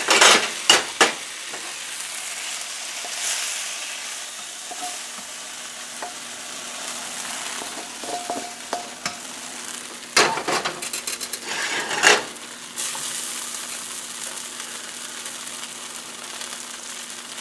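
Hot wok sizzling steadily while stir-fried beef is scraped out of it with a wooden spoon, with a few sharp scrapes and knocks of the spoon on the wok near the start and again about ten and twelve seconds in.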